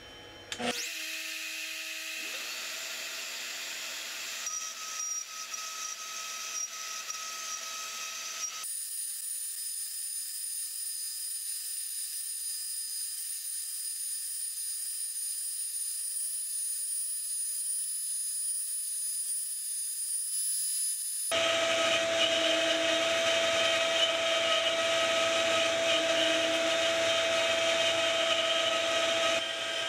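Makita router on a CNC machine spinning up with a dust-collection vacuum, then carving particle board, a steady machine whine over running vacuum noise. It starts suddenly just under a second in, and the sound changes abruptly twice, the last third being louder.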